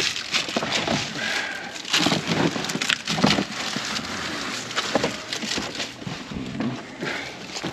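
Irregular crackling and knocking of dry debris being disturbed, with sharper knocks about 2, 3 and 5 seconds in.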